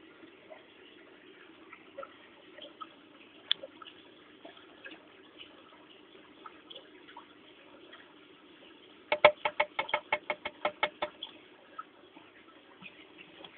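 Terrapins moving in a shallow plastic tank of water: light water movement and scattered small ticks. About nine seconds in comes a quick run of about fourteen sharp clicks, roughly seven a second.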